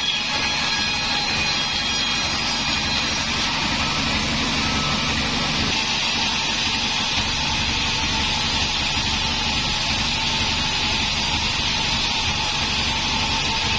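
A large sawmill band saw running steadily, its motor and blade giving a constant mechanical whir with a faint steady hum.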